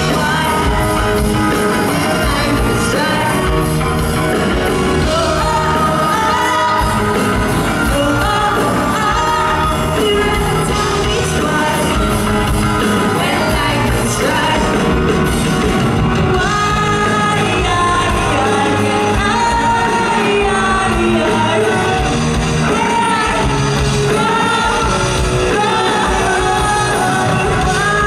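Live pop-rock band playing, with a female lead singer over electric guitar, bass and drums; the music runs steadily and loud throughout.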